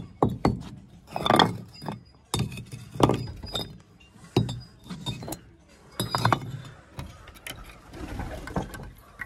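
Irregular clinks and knocks from hard objects being handled, with a few louder knocks spaced about a second and a half apart.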